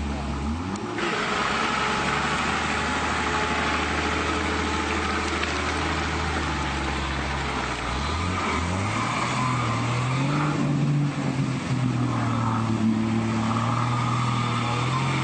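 Off-road 4x4's engine pulling hard through deep mud: it runs steadily at first, then revs climb about eight seconds in and are held high as the wheels churn.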